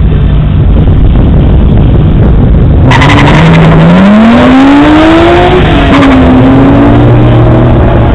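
Two drag-race cars held on the start line, then launching at full throttle about three seconds in: engine pitch climbs steeply, drops at a gear change a little under three seconds later, then climbs again as they pull away down the strip.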